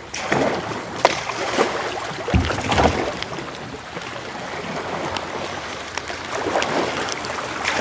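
River water rushing and splashing around a kayak's hull as it runs a shallow riffle, with scattered small splashes and a low thump about two and a half seconds in.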